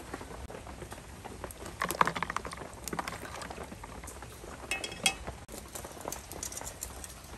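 Water bubbling in a steaming aluminium pot, with scattered light clinks and knocks of a metal strainer ladle.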